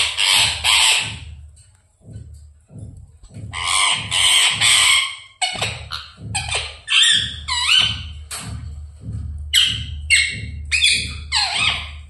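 Pet parrot squawking: three harsh squawks, another three a few seconds later, then a run of shorter calls that slide in pitch.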